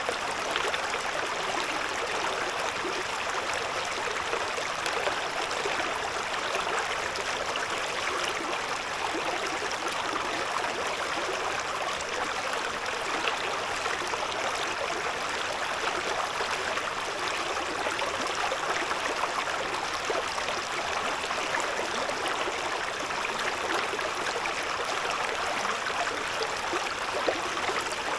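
A shallow river babbling and gurgling over stones, a steady, even rush of running water.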